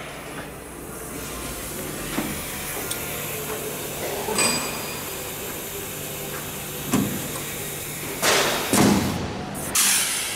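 Hand-held rivet gun setting blind (pop) rivets in an aircraft's metal trailing-edge skin: a handful of sharp clacks at uneven intervals, the loudest two near the end, over a steady low hum.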